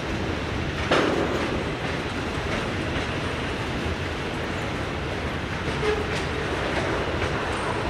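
Freight train's boxcars and tank cars rolling past, a steady rumble of wheels on rail with scattered clicks. A sharp clank stands out about a second in.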